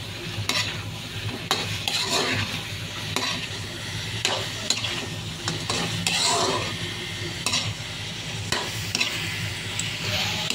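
Spatula stirring and scraping chunks of chicken, carrot and potato through a thick tomato-based sauce in a frying pan, with a scrape or tap about every second over a steady sizzle of the simmering sauce. A low steady hum runs underneath.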